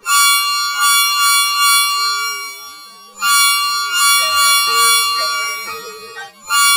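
A two-tone bus horn sounding in long blasts of about three seconds each. Each blast starts loud and fades, and a new one begins about three seconds in and again at the very end. A lower line of changing notes runs underneath.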